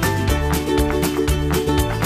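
Upbeat background music with a steady beat and held notes.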